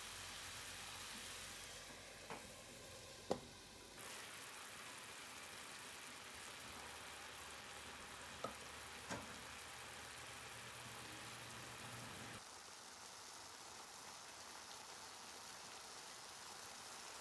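Onion steaks frying in a non-stick pan with bubbling soy-sugar sauce: a faint, steady sizzle with a few sharp pops.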